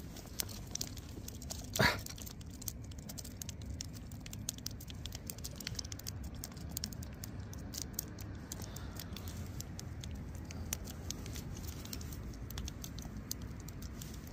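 Small spinning outfit: a hooked fish being reeled in on light line. Faint irregular clicks and ticks run over a low steady rumble, with one short louder knock about two seconds in.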